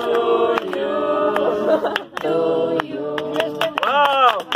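A group of people singing a birthday song together, several voices holding notes at once, with scattered hand claps.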